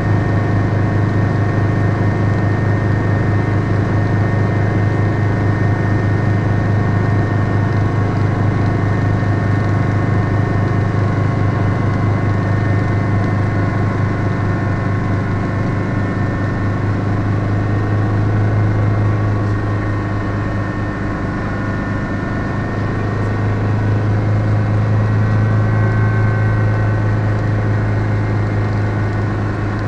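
Steady in-cabin drone of a Schweizer 300C helicopter in flight: its Lycoming four-cylinder piston engine and rotor system, a strong low hum with steady tones above it. The noise dips slightly about twenty seconds in and then rises again.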